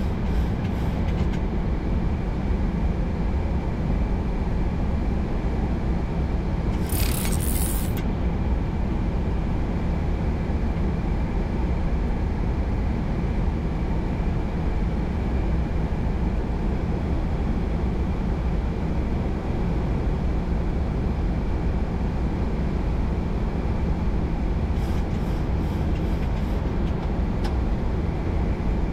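Flight deck noise of a Boeing 737-800 in flight on approach: a steady, loud rush of airflow and engine noise with a faint steady whine. A brief hiss comes about seven seconds in.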